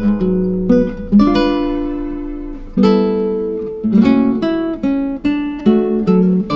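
Background music: acoustic guitar playing plucked and strummed chords that ring out and fade.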